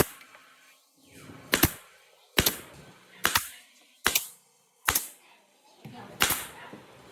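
A series of sharp strikes at a steady pace, about seven in all, each a hard crack with a short ring after it, typical of a workshop tool striking wood.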